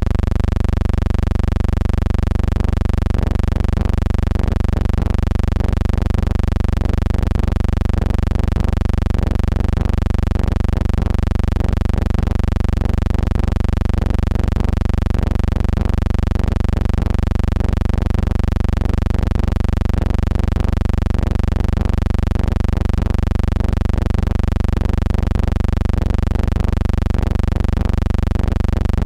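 A steady, loud low hum with many steady overtones and a slight, even throb, unchanging throughout.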